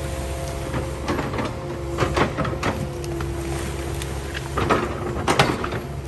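Kubota 080 excavator's diesel engine running steadily under a constant hydraulic whine, with several sharp metallic knocks and clanks as it works, the loudest about two seconds in and again near the end.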